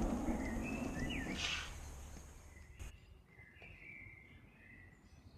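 Small birds chirping in short sliding calls, first about half a second in and again from about three seconds. A low noise fades away over the first two seconds.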